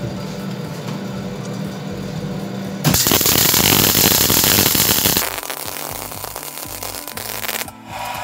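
Workshop machine noise over background music: a steady motor hum for about three seconds, then a much louder harsh hiss for about two seconds, then quieter running.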